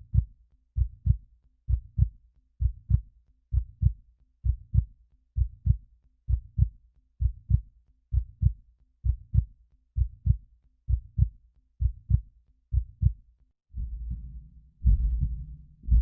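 Heartbeat sound effect: steady lub-dub double thumps, about one pair a second (roughly 66 beats a minute, a normal resting pace). Near the end it gives way to a louder, continuous low rumble with pulses in it.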